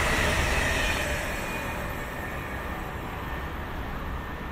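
Running noise of a high-speed electric train, two trainsets coupled together, passing on a viaduct. The noise drops sharply about a second in and gives way to a quieter, steady background rumble.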